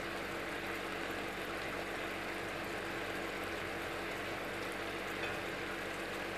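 Sweet-sour sauce simmering in a wok: a steady bubbling hiss, with a low steady hum underneath.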